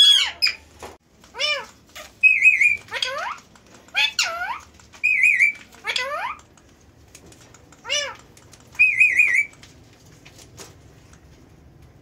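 Indian ringneck parakeet calls: short squawks that sweep up and down in pitch, mixed with quick warbling trills, in bursts every second or so, stopping about nine and a half seconds in.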